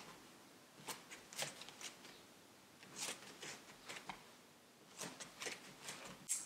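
Faint, scattered rustling and soft shuffling, about a dozen short brushes over a quiet room: a person turning in place, bare feet shifting on a wooden floor and clothing rustling.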